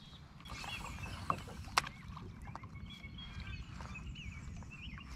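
Small birds chirping and calling over a steady low rumble, with two sharp clicks about a second and a half in.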